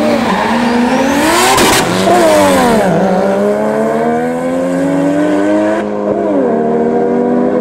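Two drag cars launching hard from the start line, engines revving with a burst of noise at the launch. The engine note then climbs and drops twice, about three seconds in and again near six seconds, as they shift up while pulling away.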